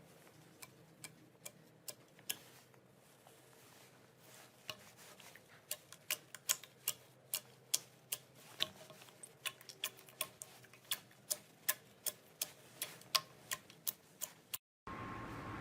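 Slime being squeezed and worked by hand, giving a run of sharp little clicks and pops, sparse at first and coming about two or three a second from around five seconds in. Just before the end the sound cuts out briefly and a louder hissing noise starts.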